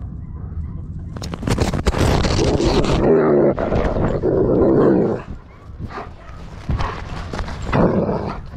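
A German Shepherd and a Belgian Malinois growling and vocalising in rough play, loudest from about a second in to five seconds in and again briefly near the end. Fur and harness rub and knock on the microphone of the camera strapped to one dog's back.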